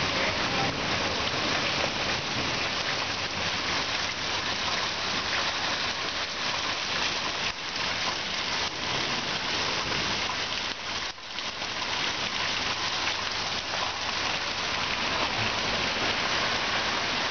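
Heavy rain pouring down steadily, a dense hiss of rain striking the lawn, street and house, easing briefly about two-thirds of the way through.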